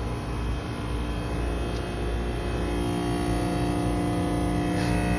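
2008 Trane XR13 heat pump's outdoor unit running in defrost: a steady compressor hum with a low rumble and refrigerant hissing. A further low steady tone joins about halfway through.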